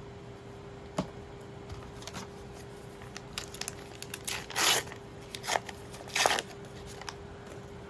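Foil trading-card booster pack being torn open and its wrapper crinkled: a tap about a second in, scattered small crackles, then two longer rips around the middle.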